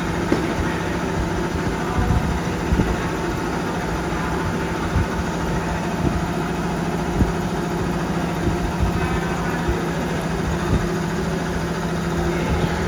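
Milling machine running steadily with a constant hum, and short light knocks every second or two.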